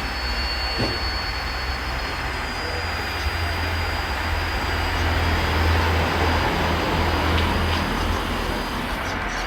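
Steady mechanical running noise of radio-controlled model construction machinery, with a low rumble and a thin high whine that stops about seven seconds in.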